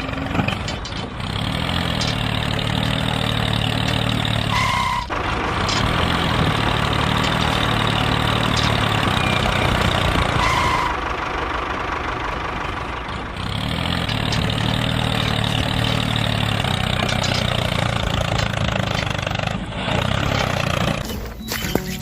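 Tractor engine running steadily under load, with two short high tones about five and eleven seconds in.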